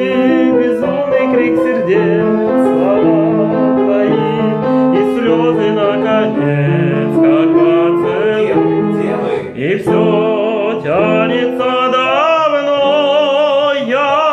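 Operatic singing with a wide vibrato over a piano accompaniment of held, stepping low notes.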